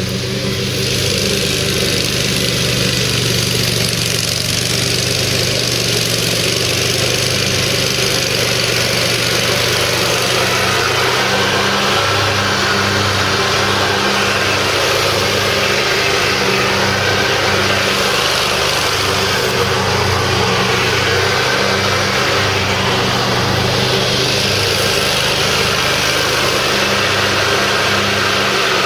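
John Deere 667A stander zero-turn mower's 23 hp Kawasaki vertical-shaft engine running steadily, getting a little louder about a second in.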